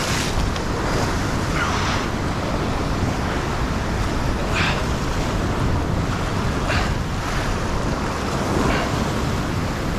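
Ocean surf washing and breaking against a rock ledge, with wind rumbling on the microphone and a few brief hisses of breaking water.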